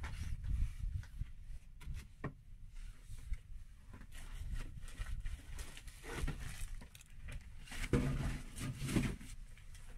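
Wind gusting against the microphone as an uneven low rumble, with rustling and scraping handling noise, the strongest gusts about six and eight to nine seconds in.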